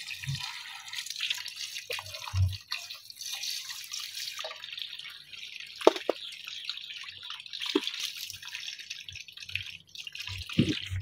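Water dripping and sloshing as hands squeeze and rub wet chopped mustard greens and spinach while washing them, with scattered small drips and plops.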